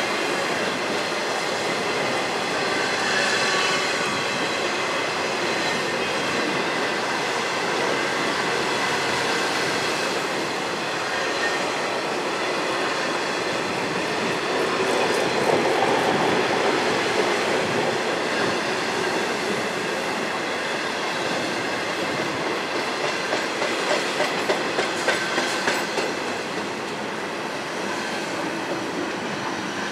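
Intermodal freight cars rolling past on steel rails: a steady wheel-on-rail rumble with a faint high wheel squeal. Near the end come rhythmic clicks, about two a second, as wheels pass over rail joints.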